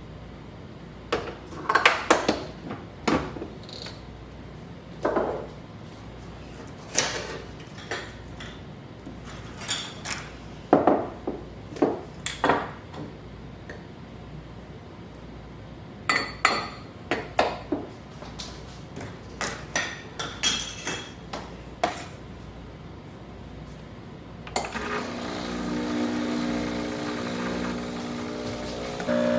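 Kitchen clatter: dishes and utensils knocked and clinked at irregular moments. Near the end a steady machine hum starts.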